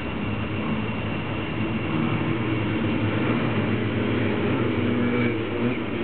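Steady low engine rumble, which grows somewhat louder about two seconds in.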